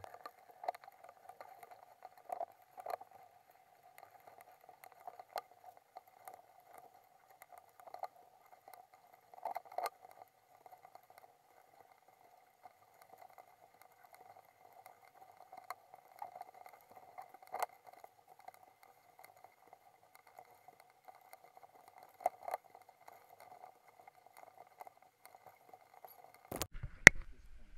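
Faint clinks and knocks of cookware and utensils handled at a galley counter, scattered every second or two over a steady faint hum, with one sharp loud click near the end.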